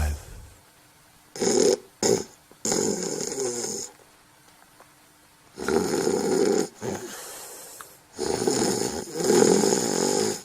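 Snoring in a series of noisy breaths: two short snores about a second and a half in, then longer ones around three, six and nine seconds in, with a quiet gap of about a second and a half in the middle.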